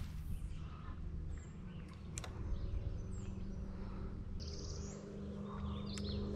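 Birds calling: a few short high chirps and a brief raspy call about halfway through, over a steady low hum.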